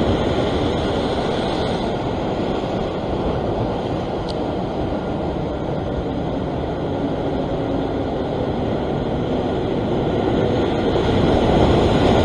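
Ocean surf breaking and washing over a rock ledge: a steady rushing noise that swells a little near the end.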